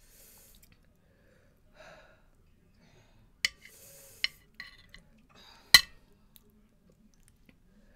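Metal spoon clinking against a ceramic bowl three times as it cuts through gelatin, the last clink the loudest, with heavy breathing out between.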